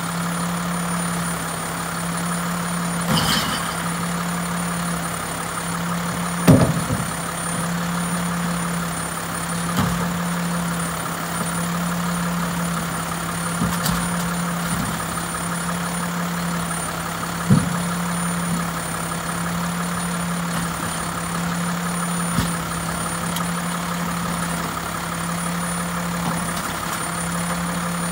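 Mack LEU refuse truck's diesel engine idling steadily, with a handful of sharp clunks as green recycling bins are knocked and emptied into the GS Products recycling body's hopper; the loudest bang comes about six seconds in.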